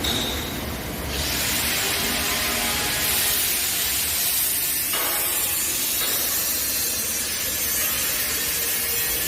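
Vibratory stress relief machine's vibrator running on a metal workpiece: a steady, loud, hiss-like mechanical noise that grows brighter about a second in.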